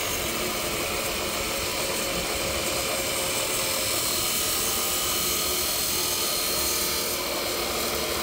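Abrasive chop saw's cut-off wheel grinding through a steel square tube, with a steady motor whine and grinding noise.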